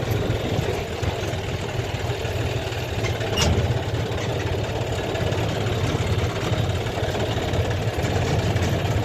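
Heavy diesel engine running steadily at low speed, with one sharp clunk about three and a half seconds in.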